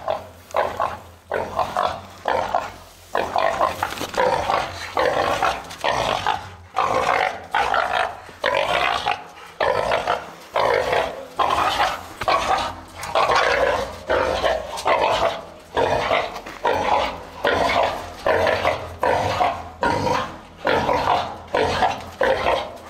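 A feral boar bayed up by a hunting dog, calling loudly over and over, about one call a second.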